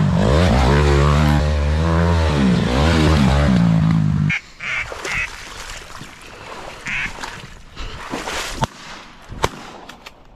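Honda CRF150R dirt bike's single-cylinder four-stroke engine revving, its pitch rising and falling, cutting off abruptly about four seconds in. Then ducks quacking a few times in a marsh, with a few sharp cracks near the end.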